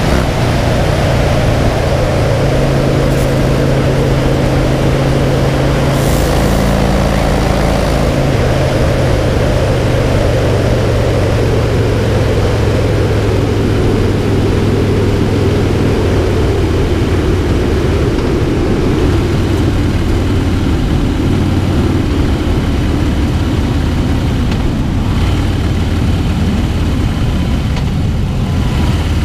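2009 Harley-Davidson Cross Bones' Twin Cam 96 V-twin engine running steadily at road speed, mixed with wind and road noise. Its note gradually falls as the bike slows.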